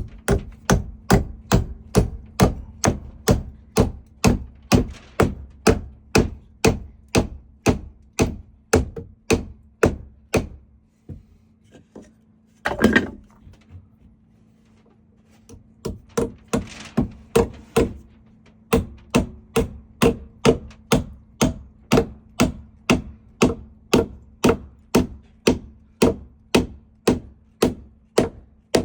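Steady hammering on wood, about two blows a second, pausing for a few seconds around the middle and then carrying on at the same pace.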